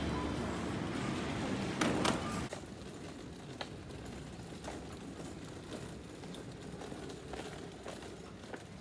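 Busy store-entrance hubbub with a sharp clatter about two seconds in. Then, from about two and a half seconds, a much quieter outdoor background with faint, irregular taps.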